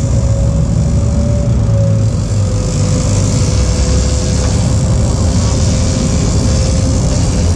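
Sport-fishing boat's inboard engines running hard with a steady low drone, a thin unwavering whine over it, and a rush of water and wind.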